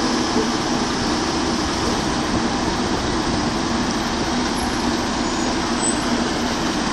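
The diesel engine of a 9-tonne tracked mini excavator running steadily.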